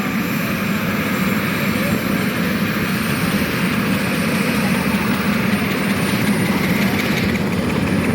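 Helicopter running close by: a loud, steady whir of engine and rotor.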